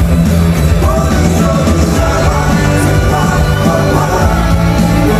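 A song performed live: a man sings into a handheld microphone over a loud band with a strong, steady bass, heard through the concert sound system from the audience.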